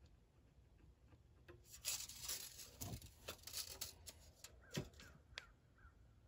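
Hands handling and sliding a board and a thin sheet across a miter saw's table: irregular rustling and scraping for about two seconds, then a few sharp knocks.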